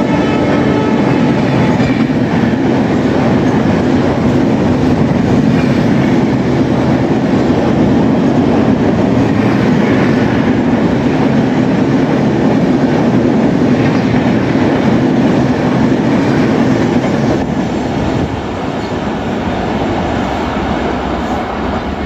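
Coaches of an express train passing at speed, a loud steady rolling rumble with wheel clatter. The diesel locomotive's horn trails off in the first second. The noise drops about 17 seconds in as the last coaches go by.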